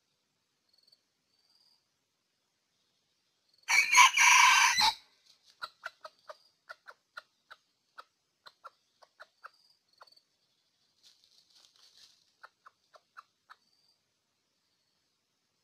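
Red junglefowl rooster crowing once about four seconds in, a short crow about a second long, followed by a long run of short, quick clucks over the next eight seconds or so, with a brief pause partway through.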